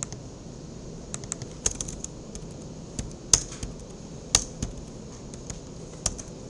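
Typing on a computer keyboard: irregular key clicks, with a few louder strokes standing out.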